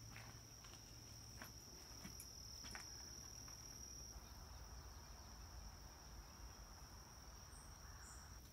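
Faint, steady high-pitched trill of an insect, holding one pitch without a break, with a few faint clicks.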